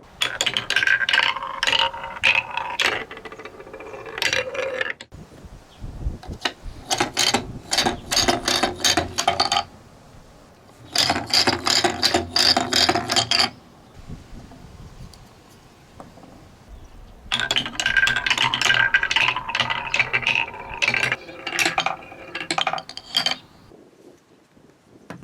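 Marbles rolling down a marble run slope course, clicking and rattling rapidly along the track in four spells of a few seconds each, with quieter gaps between.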